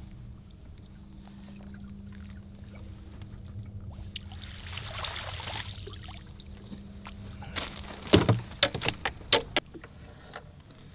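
A walleye splashes at the surface as it is scooped into a landing net beside the boat. A quick run of sharp knocks follows as the net and fish are hauled in over the boat's side. A low, steady motor hum runs underneath.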